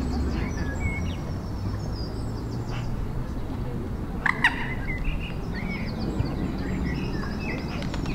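Small birds chirping and calling in many short notes, with one louder, harsher call about four seconds in, over a steady low rumble.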